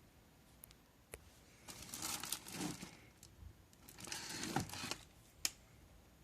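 Packaging being handled: two bursts of crinkling and rustling, with a few sharp clicks, the loudest near the end.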